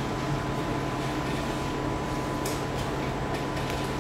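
Room tone: a steady hum and hiss with a thin, steady high tone running through it.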